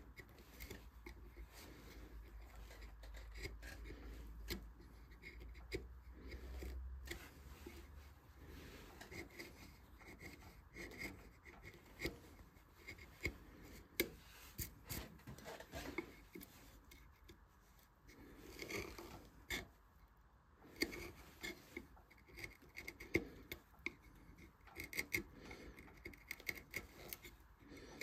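Hand carving tools cutting and scraping wood in short, irregular strokes, with sharp little clicks as the blade bites and lifts. A low hum runs under the first several seconds, then stops.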